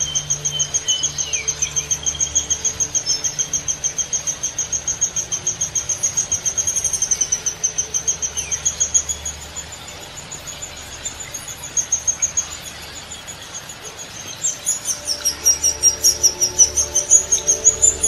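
Woodpecker calling: a long, steady series of rapid high-pitched notes, about six a second, that fades about halfway through and comes back louder near the end.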